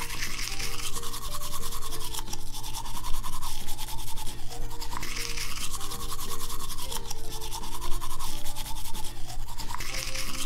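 Plastic toy toothbrush scrubbing back and forth over Play-Doh teeth in a plastic toy head, in rapid rubbing strokes, with light background music underneath.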